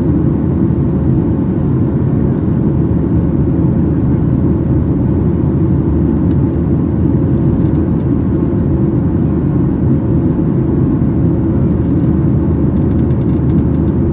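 Steady cabin noise of a Boeing 737-800 climbing after takeoff, heard at a window seat over the wing: the deep, even rumble of its CFM56 turbofan engines and rushing air, with a faint steady hum above it.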